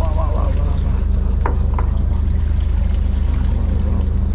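Fishing boat's engine running with a steady low drone, while water pours and drips from a bigfin reef squid just hauled out of the sea on the line. Two short sharp ticks about a second and a half in.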